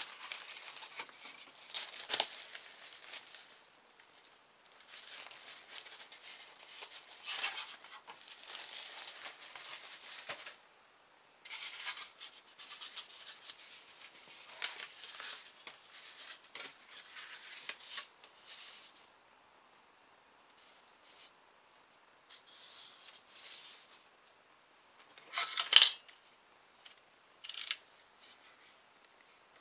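Utility knife blade scoring and cutting thin polystyrene foam plates along a steel ruler, sped up, in repeated short scratchy bursts with quiet gaps between them. Two sharp snaps near the end are the loudest sounds.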